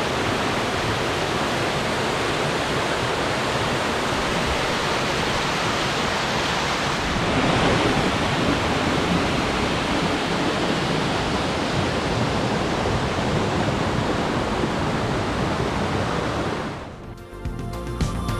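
Steady, loud rush of the Aotaki waterfall, a granite waterfall about 50 m high, water pouring into its plunge pool. Near the end the water noise fades out and soft music begins.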